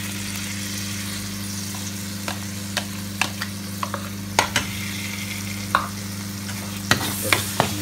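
Masala paste sizzling in hot oil as whisked yogurt is scraped into the pan with a metal spoon and stirred in. Sharp clicks of the spoon against bowl and pan come from about two seconds in and bunch up near the end, over a steady low hum.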